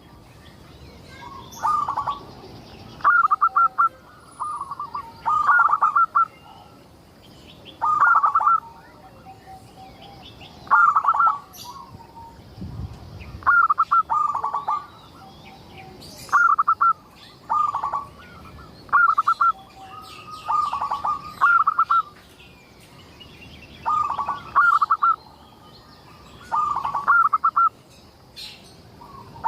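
Zebra dove (perkutut) singing: more than a dozen short, rhythmic cooing phrases, each a quick run of staccato notes, repeated every second or two, with faint high chirps of other small birds behind.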